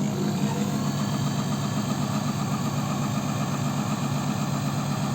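Janome Sewist 509 sewing machine running steadily with a foreign hum. The hum has come back overnight despite oiling the day before, a sign that its mechanisms need a second, more thorough lubrication.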